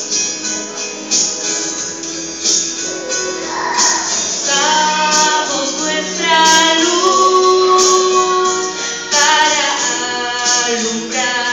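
Two women singing a gospel song through microphones and a PA over instrumental accompaniment with a regular percussion beat; the voices come in about four seconds in.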